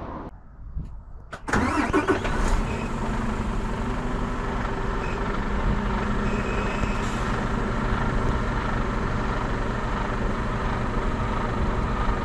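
Mercedes-Benz Actros truck's diesel engine running at a steady idle, coming in suddenly about a second and a half in after a moment of quiet.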